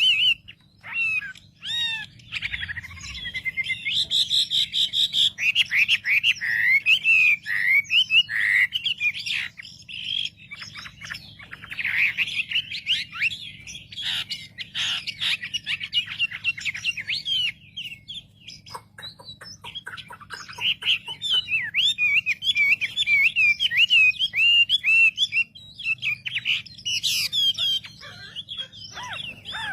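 Wambi songbird singing a long, varied run of fast chirps, trills and sliding whistled notes with brief pauses, the kind of song played as a lure to provoke other wambi birds. A faint steady low hum sits underneath.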